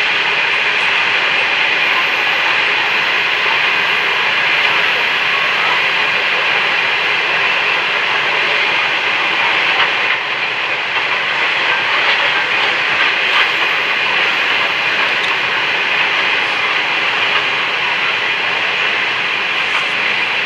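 A freight train's hopper wagons rolling past on the rails: a steady wheel-and-rail noise.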